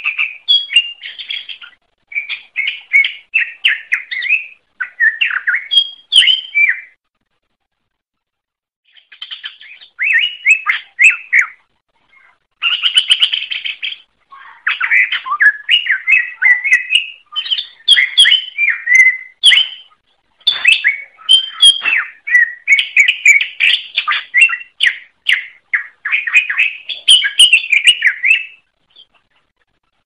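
Cucak ijo (green leafbird) singing: long runs of quick, varied whistled and chattering phrases, with a pause of about two seconds some seven seconds in and a short break near the end.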